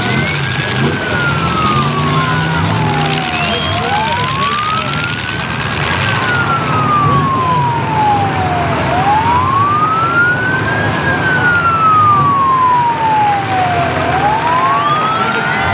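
Emergency-vehicle siren wailing in slow cycles about five seconds long: each one is a quick rise followed by a long, slow fall in pitch, over a steady noisy background.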